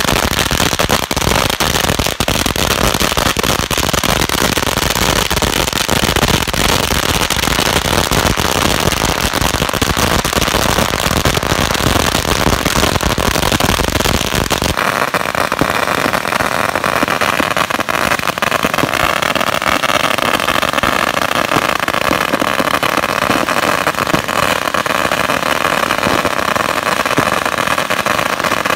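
A long string of Shogun 8000-count firecrackers going off in a continuous, loud rapid-fire crackle of pops. About halfway through, the deep boom drops out and it becomes a steadier, higher-pitched buzzing rattle.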